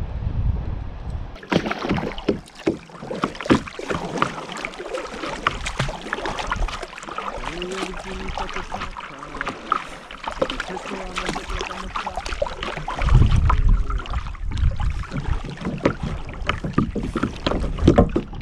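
Kayak paddling: irregular splashes and knocks of the paddle in the water and against the hull, with gusts of wind on the microphone near the start and again about two-thirds of the way through.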